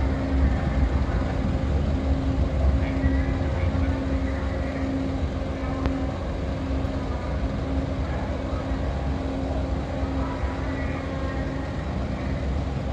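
Large ferry's engines running during berthing: a steady low rumble with a hum that drops in and out, and faint voices.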